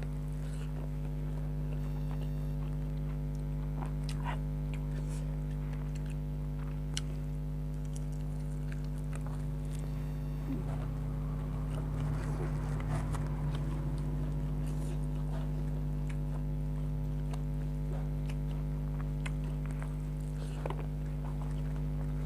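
Close-up chewing and biting of food, with scattered small clicks and mouth sounds and a busier stretch about halfway through, over a steady low electrical hum.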